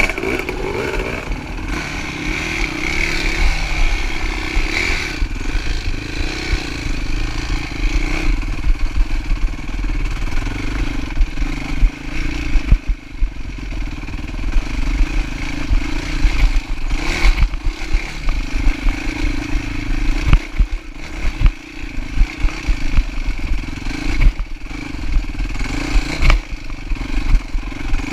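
Dirt bike engine running at low, fairly steady revs while riding a rough trail, with frequent knocks and clatter as the bike goes over bumps.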